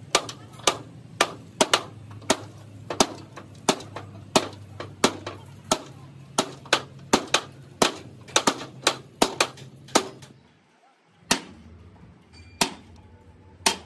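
Hammer blows on metal, about two a second and each one ringing briefly, over a steady low hum. After a short break the strikes come slower, about one every second and a half.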